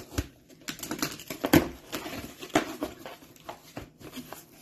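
A box cutter slicing through packing tape on a cardboard box, then the cardboard flaps pulled open, with irregular sharp knocks and rustling; the loudest knock comes about a second and a half in.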